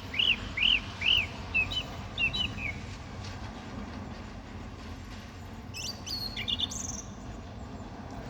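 Songbirds singing after rain. One bird repeats a clear arched whistled note about five times, then adds a few shorter notes. About six seconds in, a second, higher-pitched bird gives a brief quick phrase over a steady low background hum.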